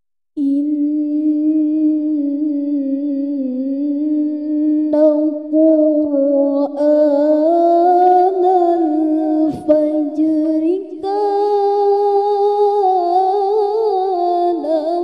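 A young woman's voice reciting the Qur'an in melodic tilawah style, drawing the words out in long held notes with wavering ornaments. It begins after a short pause and climbs higher in pitch about eleven seconds in.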